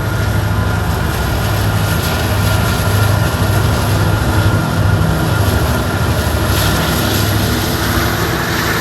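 Diesel locomotives on a loaded coal train running with a loud, steady low engine drone.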